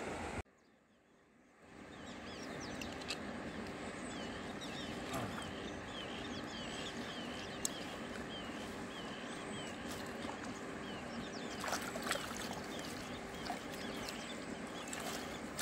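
Riverside ambience with a steady rushing noise of running water and a bird chirping over and over in quick short calls, with a few faint clicks. It begins after about a second of near silence.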